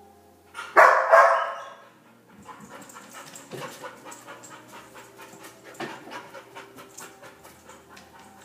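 A dog barks loudly twice about a second in, then pants rapidly and steadily: the anxious panting of a dog with separation anxiety left alone in the house.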